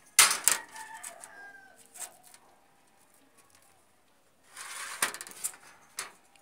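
A steel ruler clatters down onto a sheet of painted galvanized steel, then scrapes and clicks on the metal as it is slid into a new position about five seconds in. Faint bird calls come in between.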